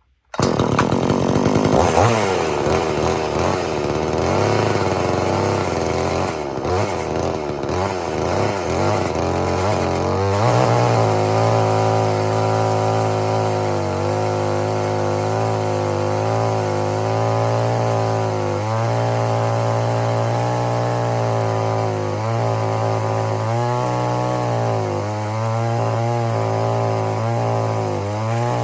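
XtremepowerUS 62100XP 45cc two-stroke gas chainsaw running at speed, most likely making a single cut through wood. For about the first ten seconds the engine pitch swings up and down, then it holds steadier with brief dips.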